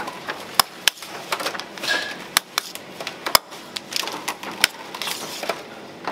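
Kitchen utensils clicking and knocking against dishes and pans in quick, irregular, sharp taps.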